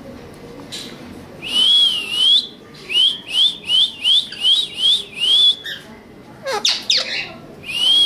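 Pet ring-necked parakeets whistling. About a second and a half in comes a long whistle that dips and rises. It is followed by a quick run of about six short rising whistles, a couple of steep falling swoops, and another long dipping whistle near the end.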